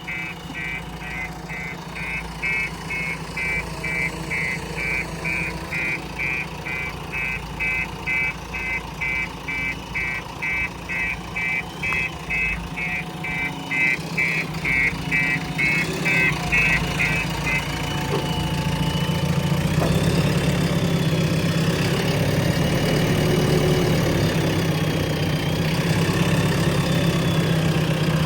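JCB 3DX Plus backhoe loader's diesel engine running, with a rapid high electronic beeping, about two or three beeps a second, for the first two-thirds. After the beeping stops the engine grows louder, with a wavering whine above it.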